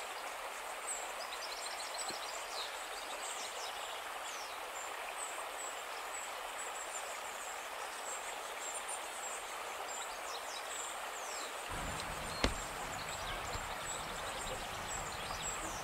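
Steady rush of a mountain river, with small birds chirping high above it. A low rumble joins the rushing about twelve seconds in, and one sharp click follows.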